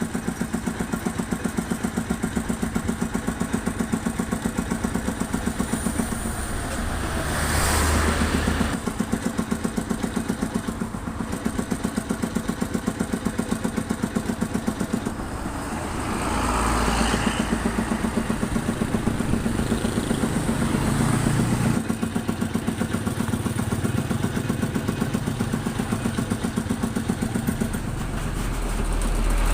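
An engine idling steadily close by with fast, even firing pulses. Louder passing-vehicle noise swells up about 8 seconds in, again around 17 seconds, and at the end.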